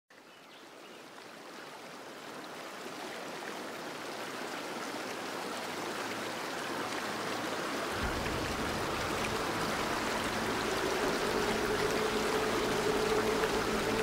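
Steady rushing of fast-flowing river water, fading in from quiet and growing louder. A deeper rumble joins about eight seconds in, and a steady humming tone comes in about ten seconds in.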